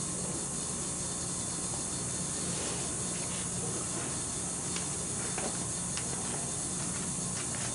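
Gas burner of an Ooni pizza oven running with its flame lit, giving a steady even hiss, with a few faint ticks.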